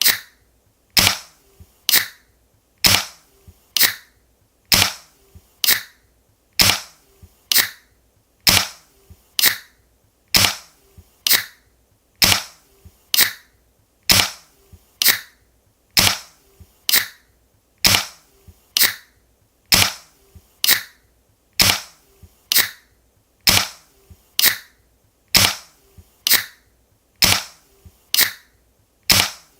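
Aluminium drink can pull-tabs being cracked open again and again, each opening a quick pair of sharp pops about half a second apart, repeating about every two seconds.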